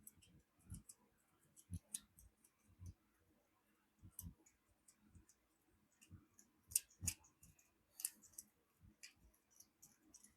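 Faint, irregular clicks and light taps of small metal tools and parts being handled while picking caked grime out of an old hand tool, with a couple of sharper taps about two seconds in and again near seven seconds.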